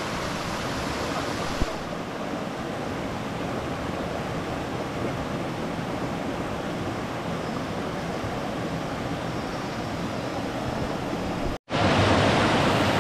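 Steady rushing noise with one short click about one and a half seconds in. It drops out for an instant near the end and comes back louder.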